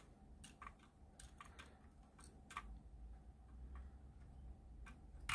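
Faint, irregular light clicks of a plastic Lego forklift being moved by hand over Lego plates and pieces, over a low steady room hum.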